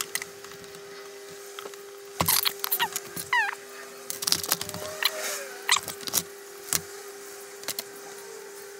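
Small clicks and taps of a metal crimp terminal and wire being handled and fitted together by hand, over a steady hum. A short chirp is heard about three and a half seconds in.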